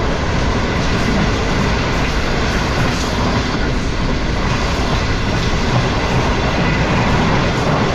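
Passenger train running at speed, heard from aboard: a steady rush and rumble of wheels on the rails.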